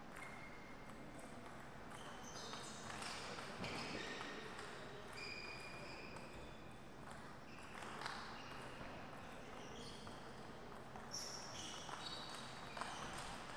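Table tennis ball clicking off paddles and table, more often in the later part. Short high squeaks of shoe soles on the court floor come and go.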